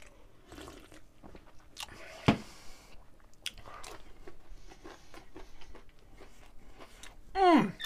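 Close-up mouth sounds of a man eating pizza and drinking: chewing with small wet clicks. There is a sharp knock about two seconds in, and a short voice sound falling in pitch near the end.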